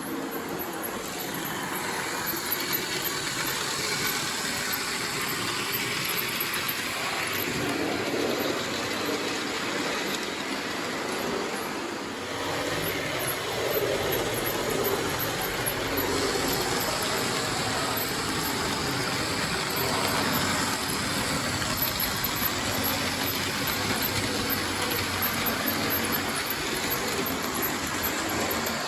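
Model SBB Am 4/4 diesel locomotive hauling a train of track repair wagons around a model railway layout: a steady running noise of motor and wheels on the track, with faint ticking.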